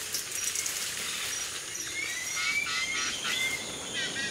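Tropical forest ambience: a steady high insect hiss, joined from about two seconds in by repeated short rising chirps.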